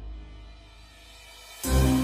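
Background music: a low held note fades away, then a louder passage of sustained notes comes in near the end.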